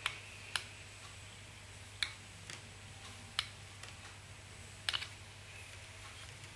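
Light, scattered clicks and ticks of hands and tying thread at a fly-tying vise during a whip finish, about seven in all and unevenly spaced, over a steady low hum.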